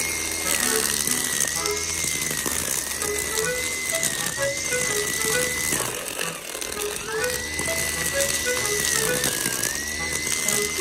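Cordless Makita 18V brush cutter with a nylon-line trimmer head running: a high motor whine that sags in pitch each time the line bites into the weeds. It stops about six seconds in and spins back up about a second later.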